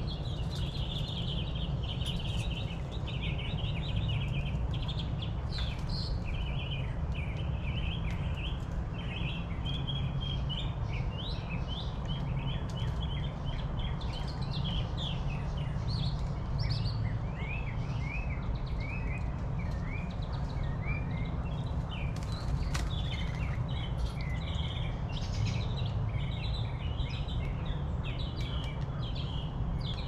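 Several small birds chirping and calling continuously in quick, overlapping chirps, over a steady low rumble.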